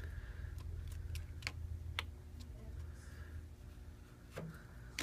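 Light, scattered clicks and taps of small repair tools on the plastic and metal parts of a phone, about six over a few seconds, over a low steady hum.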